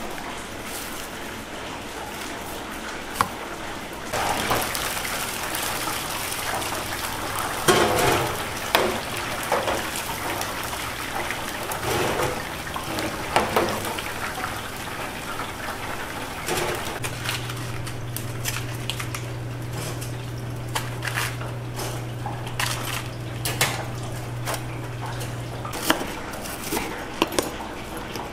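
Karaage deep-frying in a commercial fryer, the hot oil sizzling steadily, with scattered clinks and clatters of metal utensils and containers. A steady low hum comes in past the middle and stops a couple of seconds before the end.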